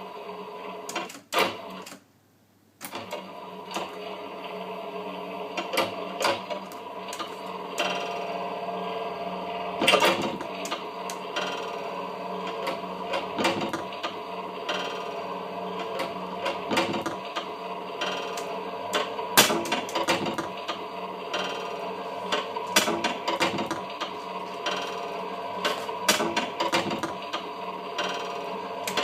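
Live tape-music improvisation on a Revox A77 reel-to-reel tape recorder: a dense layered drone of steady tones with many sharp clicks and stuttering cuts. It drops out abruptly for under a second about two seconds in.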